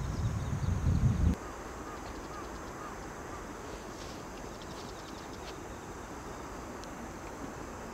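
A low rumble that cuts off abruptly about a second in, then quiet rural outdoor ambience with a few faint bird chirps.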